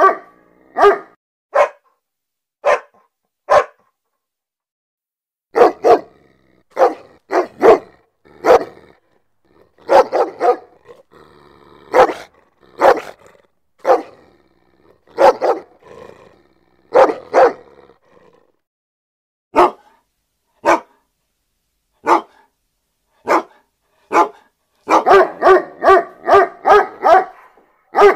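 Large dog barking aggressively and loudly: single barks about a second apart, broken by short pauses, then a quick run of barks near the end.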